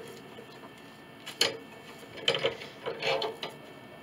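Steel C-clamps being tightened by hand on a glued wood stack: the metal screw handles click and rattle in a few short bursts, about a second and a half, two and a half and three seconds in.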